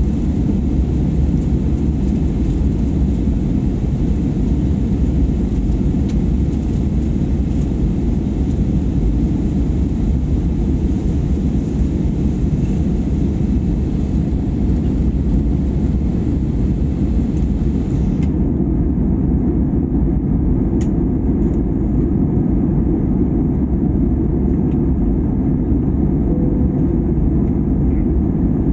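Airliner cabin noise heard from inside the cabin: the steady, deep rush of the engines and airflow, unbroken throughout.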